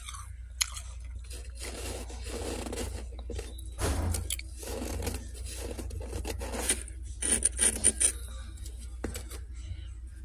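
Fresh freezer frost crunching and scraping as it is handled and eaten, in several stretches of crackly crunching with a quick run of sharp clicks about three-quarters of the way through. A low steady hum lies underneath.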